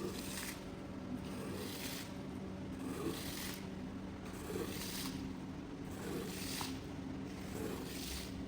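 Repeated rubbing, scraping strokes on a wet rug during deep cleaning, roughly one stroke a second, over a steady low hum.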